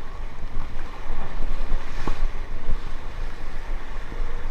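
Wind buffeting the microphone over the wash of a rough sea, a steady rumbling noise, with a faint click about two seconds in.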